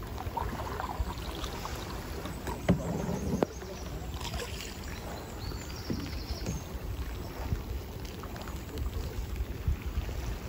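Canoe paddling on a river: paddle strokes dipping and splashing in the water over a steady low rumble on the microphone, with one sharp knock about two and a half seconds in.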